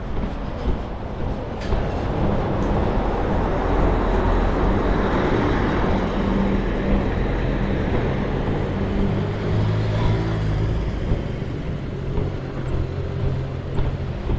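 Road traffic on a town street: a vehicle passes, its noise swelling and fading over a few seconds, over the steady low hum of an engine running nearby.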